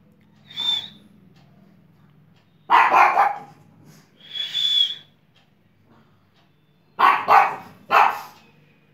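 Pug barking in short bursts, with a loud burst about three seconds in and three quick barks near the end.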